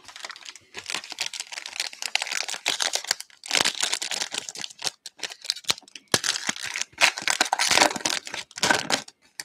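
Foil trading-card pack being torn open and its wrapper crinkled, in several bursts of crackling rustle with a sharp click a little past the middle.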